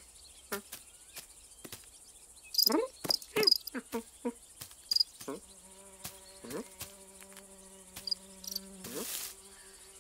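Crickets chirping steadily in a grassy field, with a cartoon cat's short sniffs and little vocal noises, loudest in a cluster a few seconds in. In the second half a steady low hum holds for several seconds.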